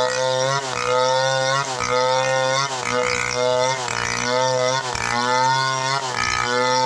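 Chainsaw running under load while cutting wood, its engine pitch dipping and recovering about once a second as the chain bites.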